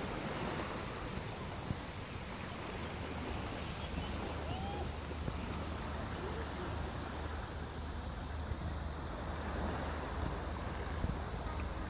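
Steady outdoor ambience dominated by wind rumbling on the microphone, with a few faint short chirps around the middle.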